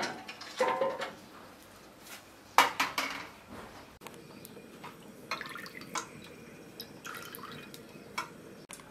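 Metal cookware clattering as it is handled, with two louder knocks in the first three seconds. Then cooking oil is poured into an empty aluminium wok, with small drips and ticks.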